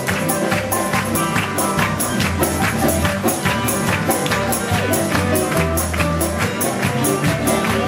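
Upbeat instrumental music with a bass line and a quick, steady beat on high percussion, about four strokes a second.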